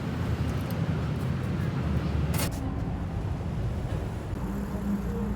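Street ambience with road traffic, a steady low rumble, with a sharp click about two and a half seconds in and a low steady hum joining near the end.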